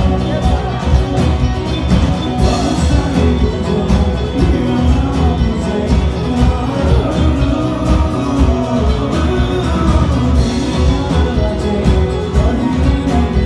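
Live rock band playing a song, with a singer, drums, bass and guitar, loud and heavy in the low end.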